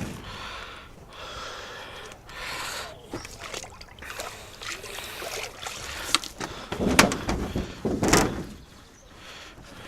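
Greenhouse glass being washed down with water: irregular sloshing, trickling and wiping against the panes, with two louder knocks about seven and eight seconds in.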